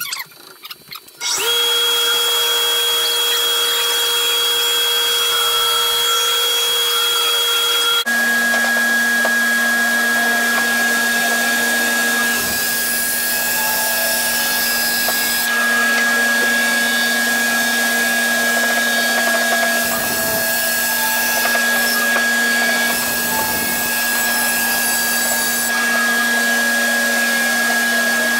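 Large stationary bandsaw running and cutting through an old barn-wood beam: a steady machine hum and whine under the noise of the cut. The whine drops abruptly in pitch about eight seconds in and holds steady after that.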